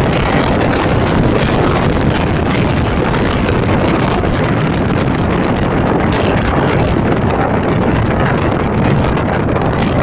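Wind rushing and buffeting against the microphone, a loud, steady rush of noise.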